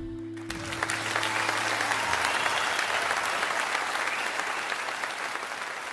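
Theatre audience applauding at the end of a song. The clapping swells about half a second in and slowly fades, while the last low notes of the band ring out for the first couple of seconds.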